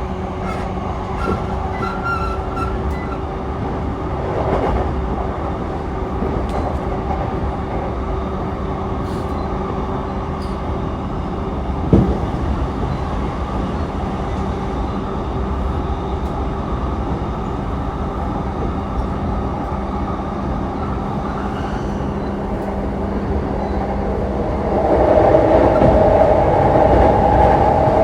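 JR East E233-3000 series electric train running at speed: a steady rumble with a hum, a single sharp clack about twelve seconds in, and the noise growing louder a few seconds before the end.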